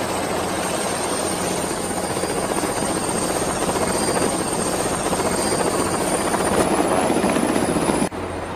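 Helicopter sound effect: a steady whirr of rotor and engine with a thin high whine, slowly growing louder, then cutting off abruptly about eight seconds in.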